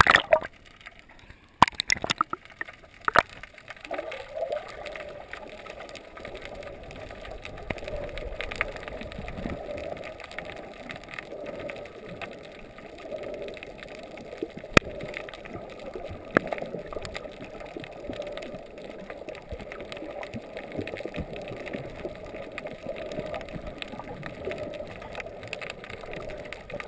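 Muffled underwater gurgling and bubbling picked up by a camera in a waterproof housing, with a few sharp splashes in the first seconds as the camera breaks the surface.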